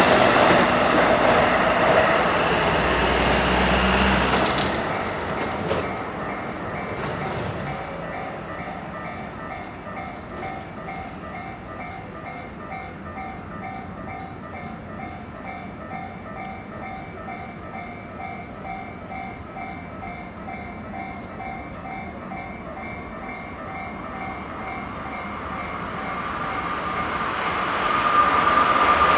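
A train passing over a Japanese railway level crossing, loud for the first few seconds and fading away about four seconds in, while the crossing's alarm bell keeps ringing with a fast, steady repeated chime. Near the end the next train approaches, its noise swelling until it is loud.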